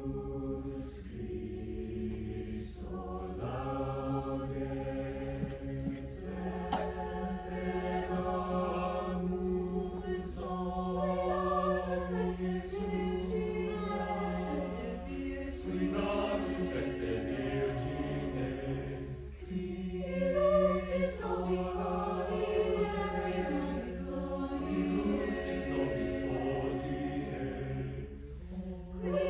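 Chamber choir singing held chords in several parts, the phrases breaking off briefly a few times, over a steady low hum.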